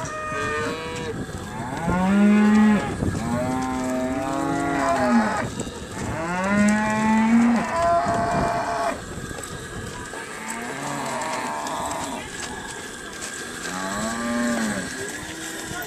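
Calves bawling in a pen: about seven long moos one after another, some overlapping.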